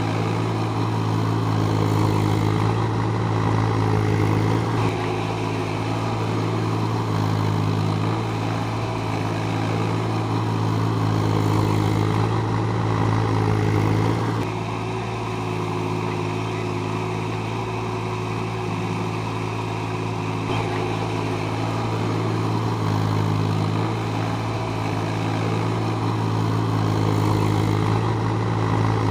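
JCB 30 Plus mini excavator's diesel engine running steadily, its tone shifting slightly a couple of times as the load changes.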